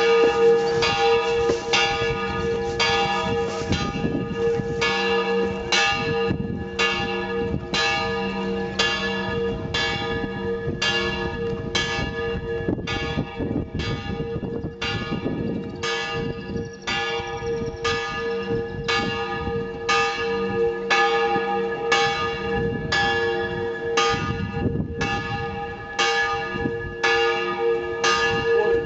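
A church bell tolling steadily, about one stroke a second, with its hum ringing on between the strokes.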